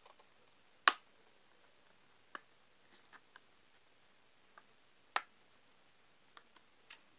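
Snap-on plastic back cover of a Samsung Galaxy Note 3 Neo being pried off with a fingernail. Its clips pop free in a series of sharp, irregular clicks, the loudest about a second in and another strong one about five seconds in.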